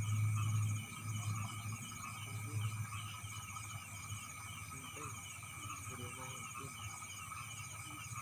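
Night chorus of crickets and other insects: steady shrill trilling with evenly repeating trains of high pulses and chirps. Under it a low rumble is loudest in the first second or so and fades out by about three seconds in.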